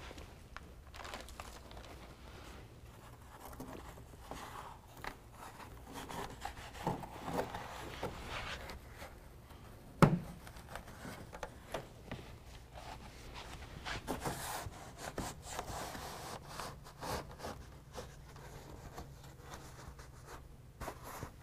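Hands pressing and rubbing a carpet-like BedRug liner side panel onto its hook-and-loop strips along a pickup bed wall: soft, scattered fabric rustling and scraping. One sharp knock stands out about ten seconds in.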